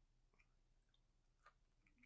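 Near silence, with a few faint, soft clicks of a mouth chewing a dumpling.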